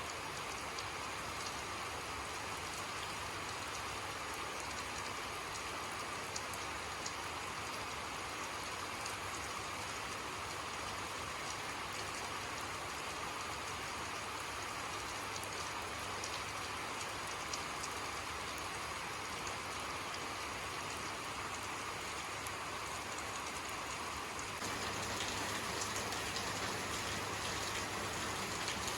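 Steady rainfall, with fine drops pattering on a surface; it grows slightly louder about 25 seconds in.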